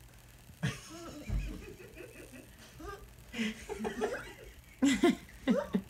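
People laughing and chuckling in short bursts, loudest about five seconds in.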